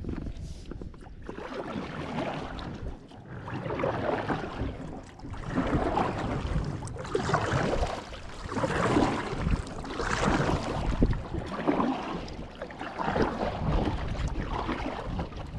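Water sloshing and lapping against a small boat in uneven swells every second or two, with wind.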